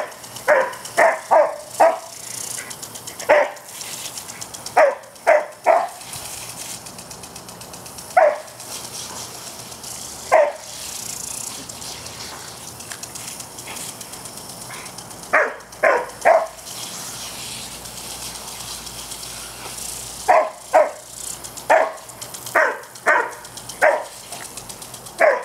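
Australian shepherd barking at a lawn sprinkler in short volleys of one to four barks, with pauses of a few seconds between volleys. Under the barks is the steady hiss of the sprinkler spraying water.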